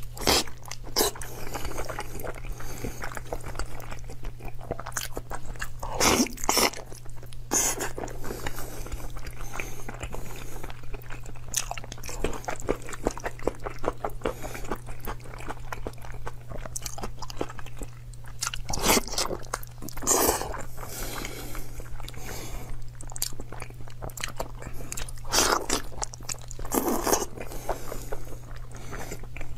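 Close-miked eating of a braised beef hoof: irregular biting and chewing of sticky skin and tendon, with louder bites every few seconds. A steady low hum runs underneath.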